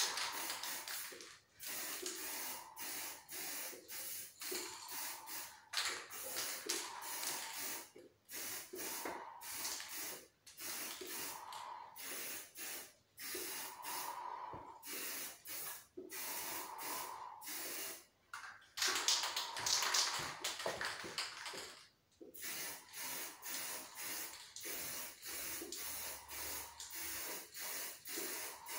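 Aerosol can of clear lacquer hissing in many short bursts as a light first mist coat is sprayed on, with one longer, louder spray about two-thirds of the way through.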